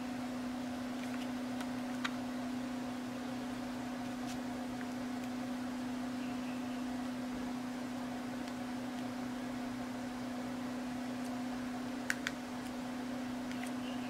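Steady low electrical hum, with a faint click about two seconds in and a quick double click near the end from the plastic buttons of a small IR remote control being pressed.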